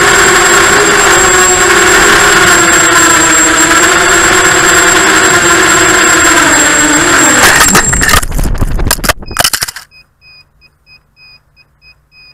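Quadcopter motors with 5045 bullnose props whining loudly at a steady pitch, as heard from the onboard camera. Near the end the pitch sags, then a rapid run of crackling knocks as the quad crashes and tumbles, which the pilot puts down to a flat LiPo battery. After that it goes quiet apart from faint, rapid short beeps.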